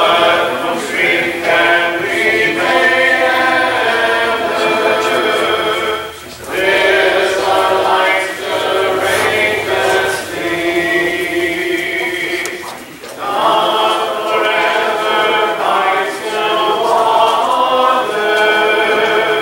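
Congregation singing a hymn a cappella, with no instruments, led by a song leader. The singing goes in sung phrases, with short breaks about six and thirteen seconds in.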